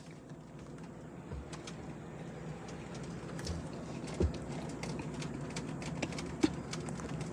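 Light clicks and taps of things being moved around, scattered irregularly over a low steady hum that slowly grows louder, with a slightly stronger knock just after four seconds and another after six.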